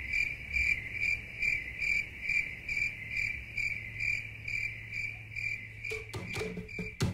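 A cricket chirping in an even, steady pulse, about two and a half chirps a second. Near the end, clicking wood-block-like percussion of music comes in.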